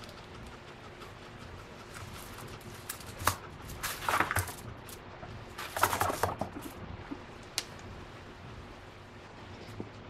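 Dry hay rustling and crackling as a hand stirs through the pile, in two short bursts about four and six seconds in, with a few sharp clicks.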